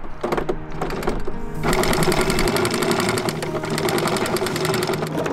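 Electric anchor windlass hauling in anchor chain: the motor running with a fast, even clicking of chain links passing over the gypsy and dropping into the locker, louder from about two seconds in.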